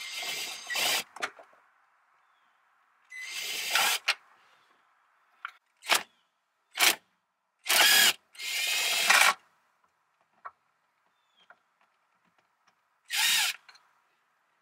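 Cordless drill-driver running in about eight short spurts, some under half a second and others about a second long, with the motor whine rising and falling as it speeds up and slows. It is backing out the screws that hold the rear speaker covers of a 2000 Honda Accord from the trunk side.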